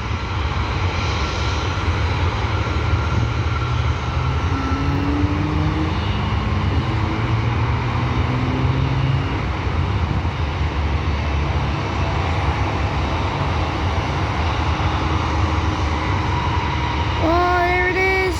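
Airbus A319 airliner jet engines at takeoff power as the plane climbs away, a steady, heavy rumble with a faint whine drifting in pitch.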